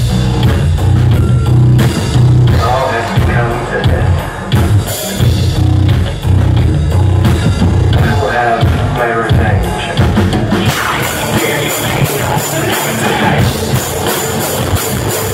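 Heavy rock band playing live: drums, bass and guitars with a singer's voice over them. About ten seconds in the deep bass drops back and the drums and cymbals get busier.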